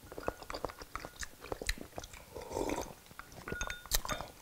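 A person chewing and eating soup with chopsticks from a bowl held to the mouth: many small wet mouth clicks and smacks.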